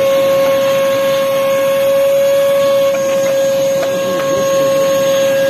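Vacuum cleaner running with a steady, even whine over a rush of air, its hose sucking soot out of an organ blower's fan housing.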